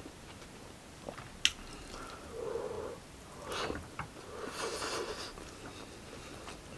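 Close-up eating sounds of a person eating rice by hand: a sharp click about a second and a half in, then a few short chewing and breathy mouth sounds through the middle.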